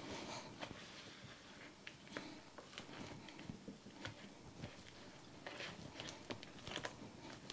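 A spurtle working a stiff cream cheese mixture in a bowl: faint, irregular squishing and scraping with small clicks as the thick mix is stirred and pressed.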